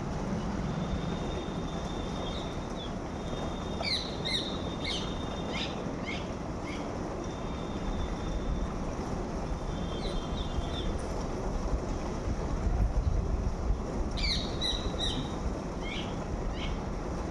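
Birds chirping in short runs of sharp high calls, over a steady low rumble; several times a thin high whistle-like tone holds for a second or two.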